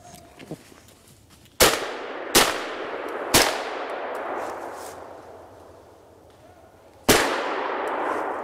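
Four gunshots, three in quick succession and a fourth a few seconds later, each followed by a long echoing roll.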